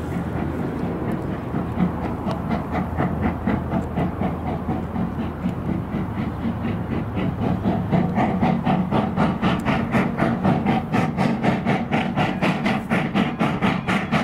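A train running by, with an even rhythmic beat of about three pulses a second that grows louder and quicker in the second half, over a steady low drone.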